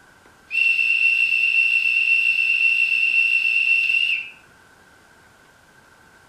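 TT-scale model Vectron DE locomotive's sound decoder sounding its horn through a small onboard speaker: one long, steady, high-pitched note of about three and a half seconds that sags a little as it cuts off. A faint steady hum lies underneath.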